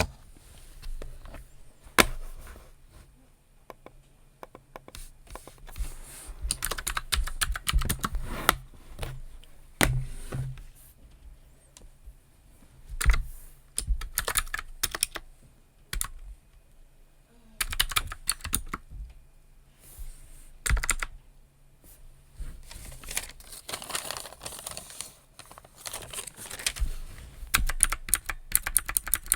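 Typing on a computer keyboard in runs of quick keystrokes with short pauses between them, and now and then a single louder click.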